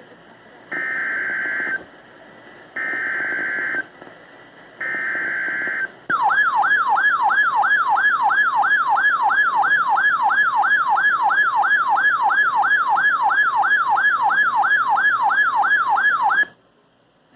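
Emergency Alert System header from a NOAA Weather Radio broadcast: three one-second bursts of data-burst screech, a second apart, then a loud warbling alert tone that sweeps up and down about two and a half times a second for about ten seconds and cuts off suddenly. It signals the start of a new severe thunderstorm warning.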